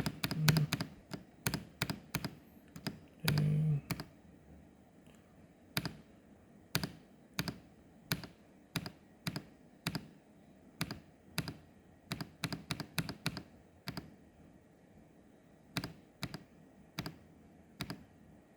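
Keys of a Vortexseries GT65 LTE mechanical keyboard with Huano Red linear switches being pressed one at a time. The clicks come quickly in the first few seconds, then about two a second at an uneven pace. A short low hum is heard twice in the first four seconds.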